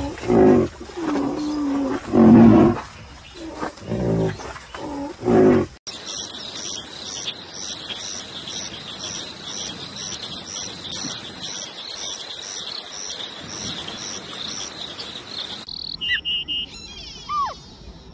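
Rhinoceros giving deep, drawn-out grunting calls, several in a row. After about six seconds this gives way to an insect chirring at an even pulse of about two a second. Near the end come a few bird chirps and whistles.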